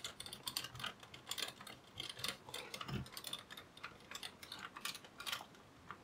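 Precision Phillips screwdriver turning small screws into a laptop cooling fan's mounting, a run of faint, irregular little clicks and ticks from the bit and screws, with one soft knock about halfway through.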